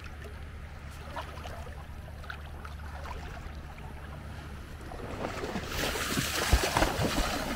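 Shallow seawater sloshing and splashing, with many small clicks of moving water; it grows louder for the last two seconds. A low wind rumble on the microphone runs under it.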